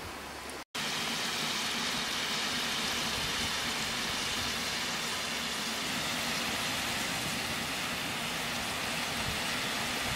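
Stew boiling hard in a wok: a steady bubbling hiss that begins abruptly about a second in.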